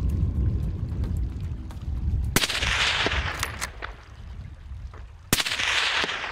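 Two hunting rifle shots about three seconds apart, each sharp crack trailing off in a rolling echo for about a second.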